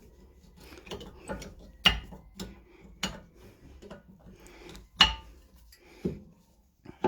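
New rear brake pad's metal backing plate clicking and knocking against the caliper carrier as it is pushed in at an angle and seated: a handful of sharp, irregular clicks, the loudest about five seconds in.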